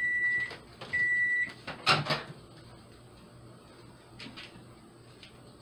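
Microwave oven beeping at the end of its 30-second cook: two steady, high, half-second beeps about a second apart. About two seconds in comes a loud sharp clack.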